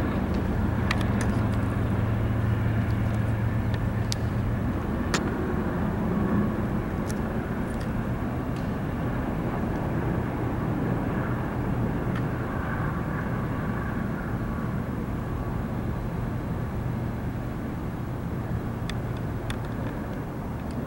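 Union Pacific diesel-electric freight locomotives running as the train moves away, a steady low engine drone that slowly fades, with a few sharp clicks.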